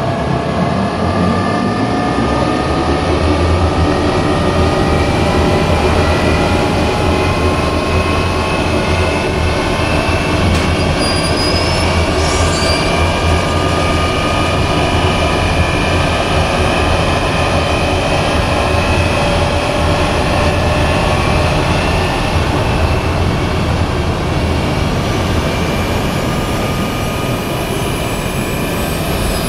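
Sound effect of a large spacecraft's engines after touchdown: a loud, steady low rumble under a whine of several tones that slowly fall in pitch as the engines spool down. The rumble eases near the end.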